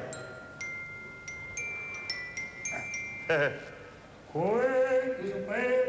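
A quick run of clear bell-like notes, struck one after another, giving the pitch. A voice then sounds the note briefly before a longer held tone near the end.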